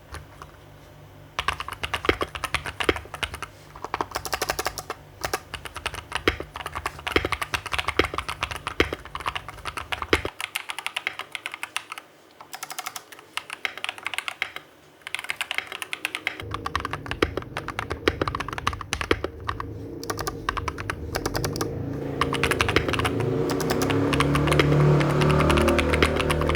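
Typing on a Fantech Maxfit 61 mechanical keyboard with KTT Sea Salt linear switches and foam dampening: a rapid, continuous clatter of keystrokes that starts about a second and a half in and grows louder in the last few seconds.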